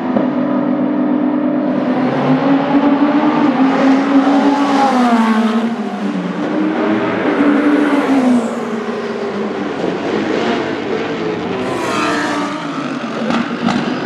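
Endurance race cars at full speed on a circuit: several engines sound at once, their notes rising and falling in pitch as the cars pass and shift gear.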